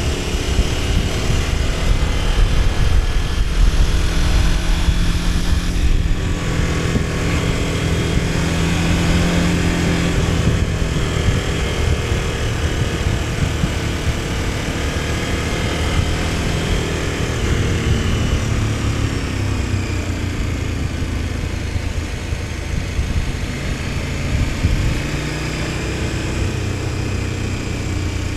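KTM 1290 Super Adventure S's V-twin engine running under way, its pitch shifting with the throttle and settling lower in the second half, over a steady rush of wind and road noise.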